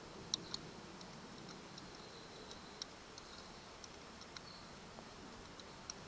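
Faint, scattered light clicks of a small manual grease gun's metal parts being handled while a hex screw plug is fitted into it. Two clicks come close together about a third of a second in, and a few fainter ones are spread out after.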